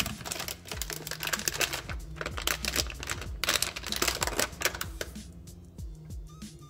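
Bubble-wrap and plastic bag crinkling and rustling as hands work a small electronic receiver out of its packaging, dying away about five seconds in. Soft background music plays under it.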